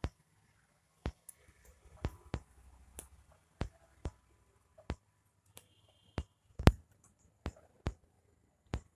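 Scattered sharp clicks and knocks, irregular, one or two a second, the loudest a little past the middle.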